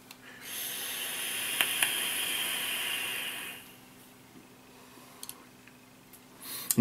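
A long draw on an e-cigarette: about three seconds of steady hiss as air is pulled through the atomizer while the coil fires, with two faint pops in the middle. The hiss then stops and the exhale is quiet.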